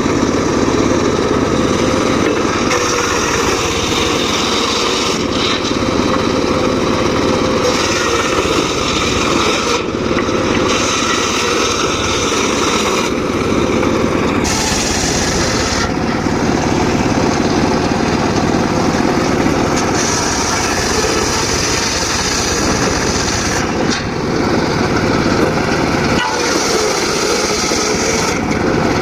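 Homemade engine-driven circular saw running steadily while cutting mahogany, its cutting noise rising and dropping away every few seconds as the blade goes into and out of the wood.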